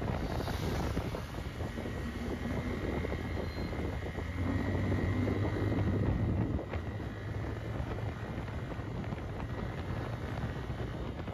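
Bajaj Pulsar 250 motorcycle engine running under way, with wind noise on the microphone. The engine note grows louder for a couple of seconds midway, then eases off.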